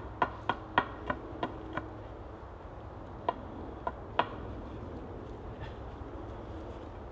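Sharp knocks on a timber beam where it sits on its post: a quick run of about seven taps, roughly three a second, then three more spaced-out knocks a few seconds in.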